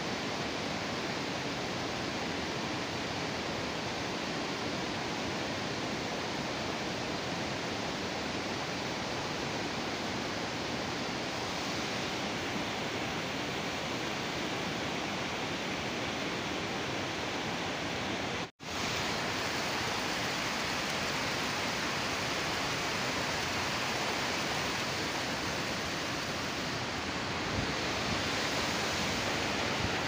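A tiered waterfall splashes into a stream pool, making a steady rush of falling water. The sound drops out completely for a split second about two-thirds of the way through.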